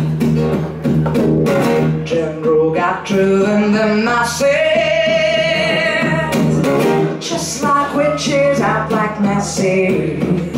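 Acoustic guitar strummed live with a woman's singing voice over it, holding one long note about halfway through.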